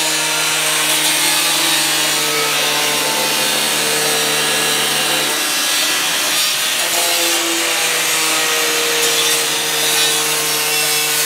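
Angle grinder with a cut-off disc cutting through rusted sheet-steel car body panels, its motor whine steady over a hiss of grinding. The steady tone drops out briefly about halfway and then picks back up as the disc works on.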